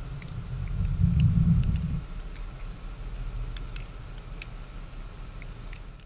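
Chevy pickup truck driving through deep snow, its engine giving a low rumble that swells about a second in and then eases off.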